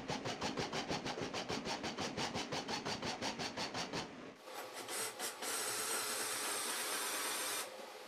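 20V cordless drill boring through a router insert plate into a plywood table top. It pulses evenly at about seven a second for the first four seconds, then runs as a steadier hiss that cuts off abruptly near the end.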